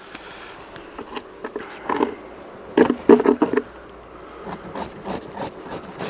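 Scraping on the wooden frame tops of a beehive in short irregular strokes, clearing them so the queen excluder can sit flat, with bees buzzing around.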